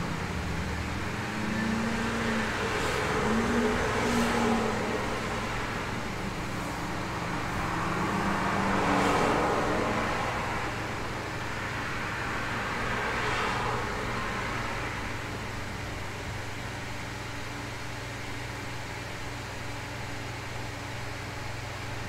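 Cars passing by: three swells of tyre and engine noise that rise and fade, the loudest about nine seconds in. Under them is a steady low hum and hiss of room noise.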